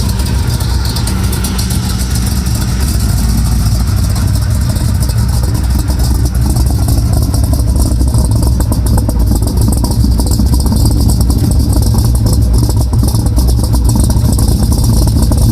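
Chevrolet K5 Blazer's engine running through headers, a steady low exhaust rumble that swells slightly in the second half; the headers have an exhaust leak.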